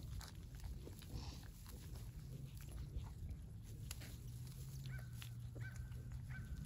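A newborn piglet and its sow stir in straw with faint rustling, and the piglet gives four short high squeaks near the end. A low steady drone runs underneath.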